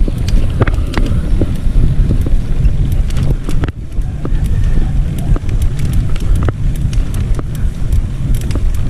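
Wind rumbling on an action camera's microphone while riding a mountain bike, a steady low rumble with scattered clicks and rattles.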